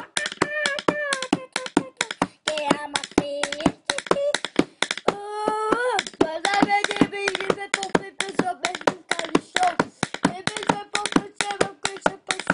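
Pencil drummed on a hard surface in a fast, even beat of about four or five taps a second, with a child's voice singing along in held, wordless notes that slide upward about five seconds in.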